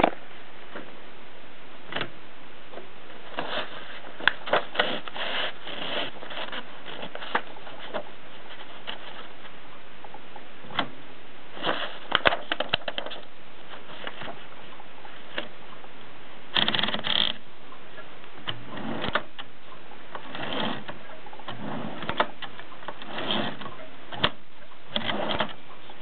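Groma Kolibri portable typewriter being worked by hand: sharp key and typebar strikes in irregular clusters, with a longer rattle of the mechanism about two-thirds of the way through.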